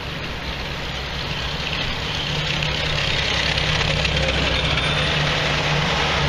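Tractor engines running in a passing line of parade tractors: a steady low engine drone that grows louder over the last few seconds as an Oliver 1660 tractor comes close and passes.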